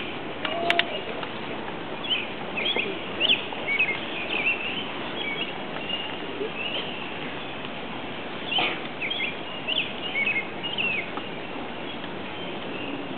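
Birds chirping: short, quick high calls coming in scattered runs over steady background noise, with a couple of sharp clicks just under a second in.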